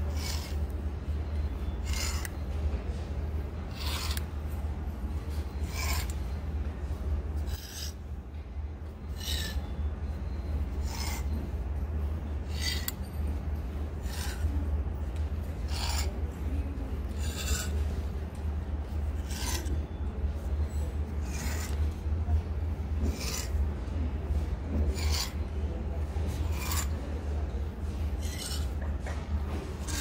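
Plastic clothes hangers being slid one by one along a clothing rack rail, each shove a short scrape and click every second or two, with shirt fabric brushing. A steady low hum runs underneath.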